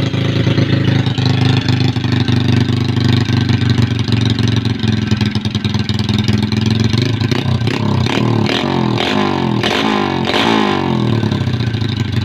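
Honda XRM 125 single-cylinder four-stroke engine, bored out with a 62 mm cylinder, running through an aftermarket Daeng exhaust pipe. It idles steadily, then is revved up and down several times in the second half.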